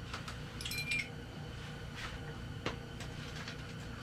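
Faint clicks and light knocks from fishing gear being handled, over a low steady hum.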